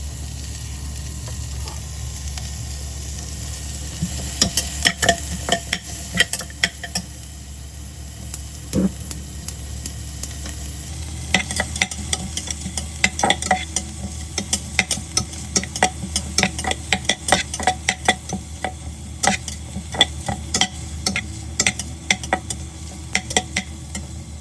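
Garlic, ginger, onion and lemongrass sizzling in butter and oil in a pressure cooker pot, with a utensil clacking and scraping against the pot as it is stirred. The clatter starts a few seconds in and gets busier in the second half.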